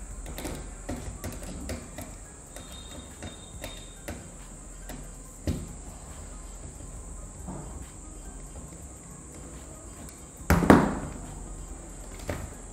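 Hand-tool handling of a portable DVD player's metal hinge bracket and plastic casing: scattered small clicks and taps as screws and the bracket are worked loose, with a sharp knock about five and a half seconds in and a louder knock about ten and a half seconds in. A steady high-pitched whine runs underneath.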